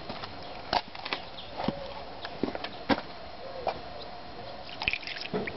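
Water dripping: irregular sharp drops, about one or two a second.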